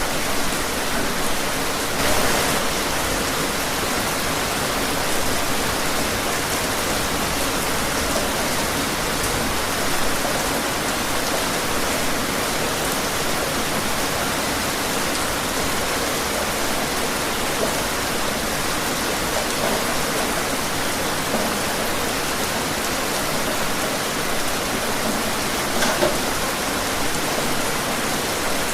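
Steady rain falling outdoors, an even hiss of rainfall with a few louder individual drops or splashes now and then.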